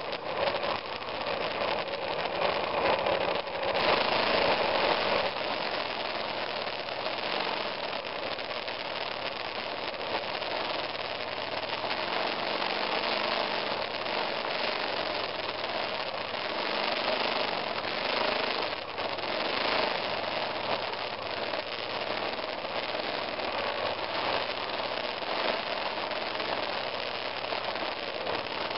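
2002 BMW F 650 GS Dakar's single-cylinder engine running steadily as the motorcycle rides a dirt trail, mixed with a steady rush of wind noise on the mirror-mounted microphone; briefly louder a few seconds in.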